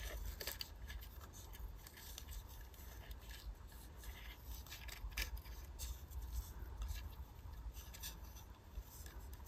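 Faint rubbing and small scattered clicks of fingers working blind cord into a knot inside a hollow plastic Blythe doll head shell.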